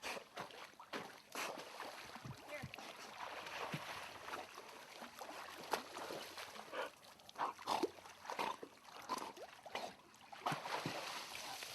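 Water splashing and sloshing in a swimming pool, with many short slaps and clicks and a few brief, faint calls among them.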